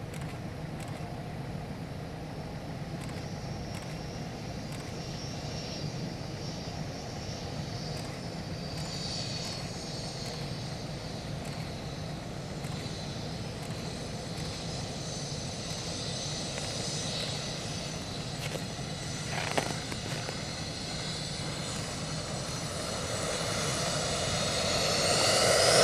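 Twin Honeywell TFE731-5B turbofan engines of a Yak-40 testbed, heard as a faint whining jet noise during landing and runway rollout. The noise grows steadily louder over the last few seconds as the aircraft rolls towards the microphone.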